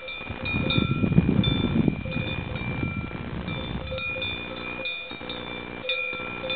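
Cowbells ringing irregularly, clanking on and off throughout. A louder rumbling noise rises about half a second in and fades after about two seconds.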